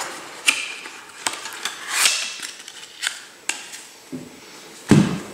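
A deck of playing cards is slid into its paper tuck box and the flap tucked shut: a few light clicks and a brief brushing sound. Near the end comes a dull thump as the boxed deck is set down on a cloth close-up mat.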